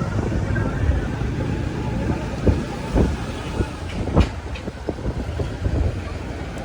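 Low steady rumble of a vehicle travelling over a rough road, with irregular knocks and rattles.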